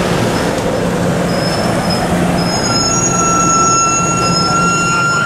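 Stainless-steel passenger cars of a Cuyahoga Valley Scenic Railroad train rolling past close by, with a loud, steady sound of steel wheels on rail. A steady high-pitched squeal from the wheels joins about halfway through.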